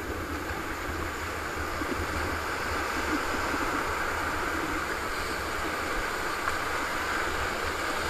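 Whitewater of a big river rapid rushing steadily around a paddle raft, with a low rumble underneath.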